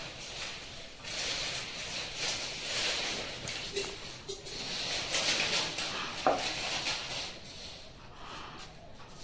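A steel tumbler pressed and twisted into rolled dough on a wooden board, cutting out rounds for gupchup (pani puri). Irregular scraping and rubbing with small clicks, coming and going with each cut.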